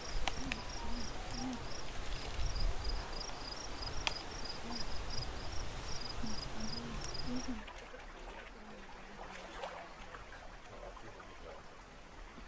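Outdoor ambience: a high, even chirp repeated about three times a second over a low rumble of wind on the microphone. Both stop about seven and a half seconds in, leaving a quieter background.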